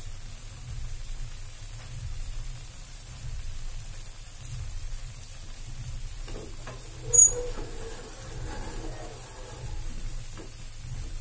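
Potato tikkis frying in hot oil in a pan, with a faint steady sizzle. A single sharp knock about seven seconds in as the pan is handled.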